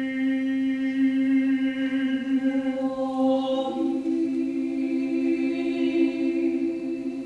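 Small vocal ensemble singing long held notes in a slow contemporary sacred chant. A little after halfway a second, higher note joins the sustained lower one, and the two are held together.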